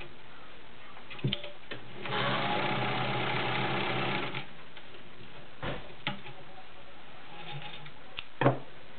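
Vintage Pfaff 130-6 sewing machine running for about two seconds, stitching a seam through delicate chiffon. A few short clicks and knocks come before and after the run, the sharpest near the end.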